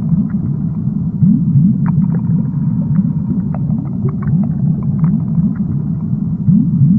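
Underwater ambience: a steady, loud low rumble full of short rising low tones, with scattered faint clicks.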